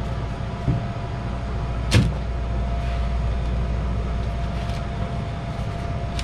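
Steady low hum of kitchen equipment with a faint constant whine over it. About two seconds in there is a sharp knock as a plastic mixing bowl is set down on a metal sheet pan, and a lighter knock comes just before it.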